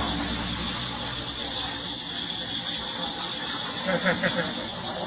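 A macaque gives a quick run of four or five short, high squeals about four seconds in, over a steady background hiss.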